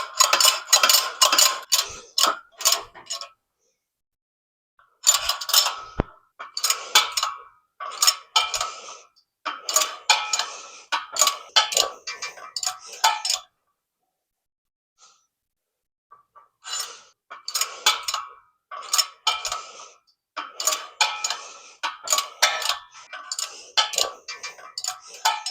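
Steel parts clinking and rattling in quick runs of small metallic clicks as bushing slugs and spacers are handled and set into a steel motor cradle, in several bursts with short pauses between.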